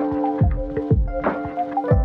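Background music: held chord tones over a steady, deep kick-drum beat.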